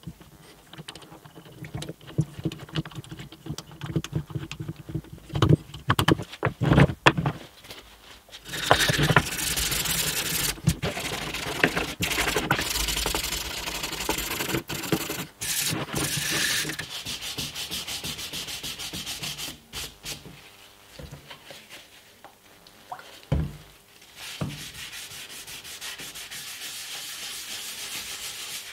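Hand-sanding a film-faced plywood model car with a sanding sponge: a rough, even scraping for several seconds in the middle. Before it come scattered knocks and clicks as the wooden parts are handled and fitted together. Near the end there is a softer, steady rubbing as a cloth wipes oil onto the wood.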